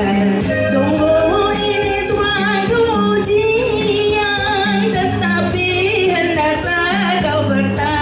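A woman sings a Malay-language song through a microphone and PA, holding wavering notes with vibrato. Under her voice is a recorded backing track with a steady beat.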